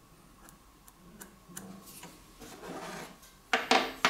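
Light ticks and rubbing as a steel rod is held against a metal square and marked with a pen on a wooden bench, then two sharp knocks near the end as the parts are handled.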